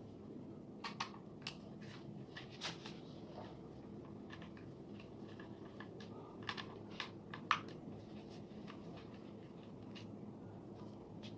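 Faint scattered clicks and taps of hands working on a small drone and its parts, over a steady low hum. A few taps come close together about a second in and again around six and a half to seven and a half seconds in, the last of them the loudest.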